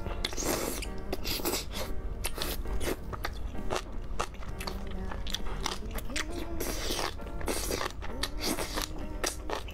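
A person slurping spicy instant noodles off chopsticks and chewing them, wet slurps and chews coming again and again at an uneven pace, over background music.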